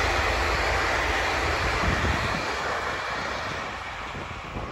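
V/Line passenger train hauled by an N class diesel locomotive passing and drawing away. Its wheel and rail noise fades steadily as the last carriages go by.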